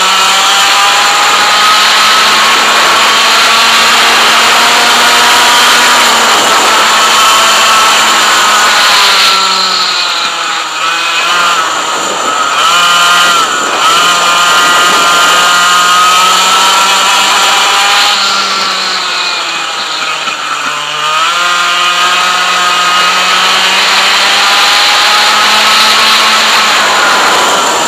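A 100cc two-stroke kart engine running at high revs. Its pitch drops twice, about ten and twenty seconds in, as the kart slows for corners, then climbs again under power.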